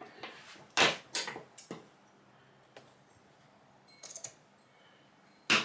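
Scissors snipping relief cuts into the edge of acoustic carpet wrapped over a hardboard panel: a few short, sharp snips in small groups, about a second in, about four seconds in and again at the end.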